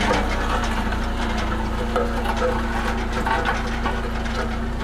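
Small Sakai tandem road roller's diesel engine running steadily with an even low hum as the roller drives slowly along a gravel track.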